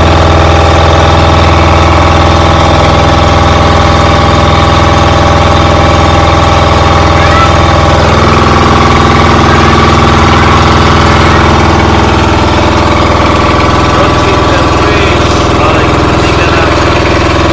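An engine running steadily, its tone shifting slightly about halfway through.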